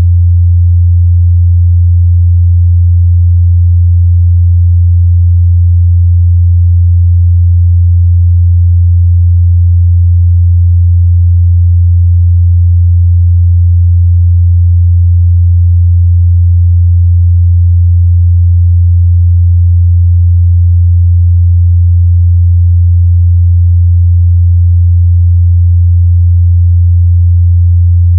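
Continuous 87 Hz sine test tone, a steady low hum that does not change in pitch or level.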